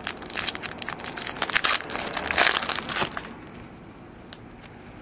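A trading-card pack wrapper and cards being handled, with rapid crinkling and rustling for about three seconds. Then it goes quiet, with one light click near the end.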